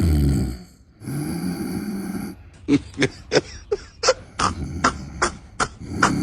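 A person snoring: long rasping snores, broken in the middle by a quick run of short, sharp puffs, about four a second, before the snoring resumes near the end.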